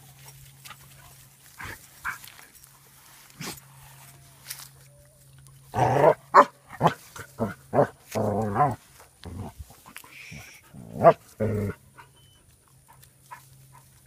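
Basset hounds barking: a quick run of short barks starting about six seconds in, one longer wavering bark in the middle, then two more barks near the end. A low steady hum sits underneath.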